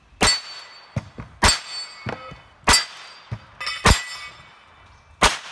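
Revolver firing five shots at a steady pace, about one every second and a quarter. Each shot is followed by the clang and ring of steel plate targets being hit, with smaller metallic clanks between the shots.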